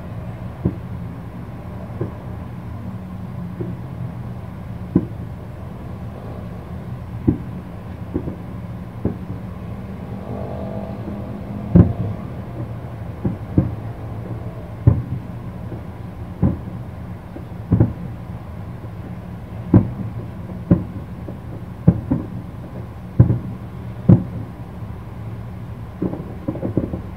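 Distant aerial firework shells bursting: a string of sharp booms at irregular intervals, more of them and louder in the second half, over a steady low hum.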